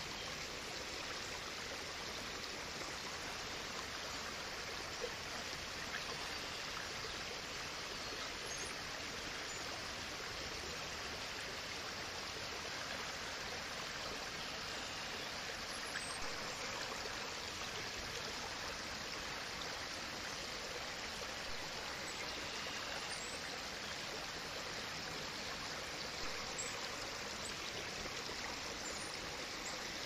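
Steady rushing of running water, with a few faint ticks.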